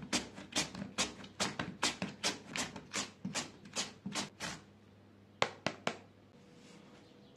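Raw potato grated on a plastic julienne grater over a wooden board: a scraping stroke about two or three times a second, stopping about four and a half seconds in, then three sharp knocks.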